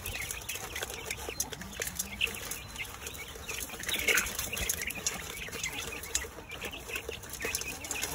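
Chicks pecking at a bowl of mixed grain, many small quick taps, with short chick calls here and there, the clearest about four seconds in.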